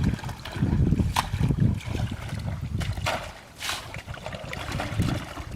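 Water sloshing, with a couple of brief splashes and a low rumble of wind on the microphone.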